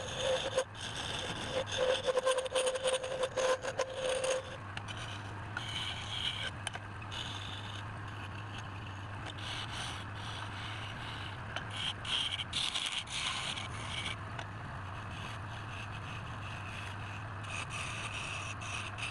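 Wood scraping and rubbing against a workpiece spinning on a woodturning lathe, over the lathe motor's steady hum. A steady whine sounds for the first few seconds, then stops.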